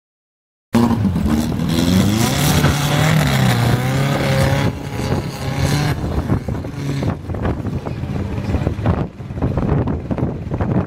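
Volkswagen Beetle's air-cooled flat-four engine revving up and down as the car climbs a rocky trials hill. It is loudest in the first few seconds and falls back about halfway, leaving gusty wind on the microphone.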